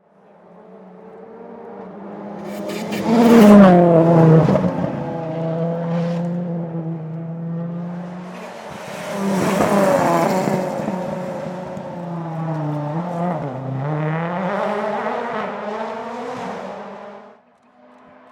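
Rally car engine at full stage pace, revs rising and falling through gear changes and braking. It is loudest as it passes close about three seconds in, surges twice more around ten and fifteen seconds in, and cuts off suddenly near the end.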